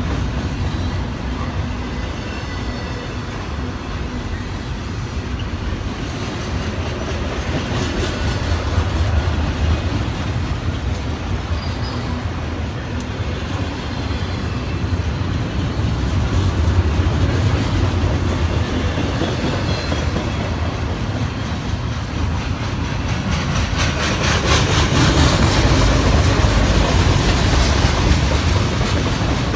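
Train cars rolling past: a steady rumble and clatter of steel wheels on the rails, growing louder near the end.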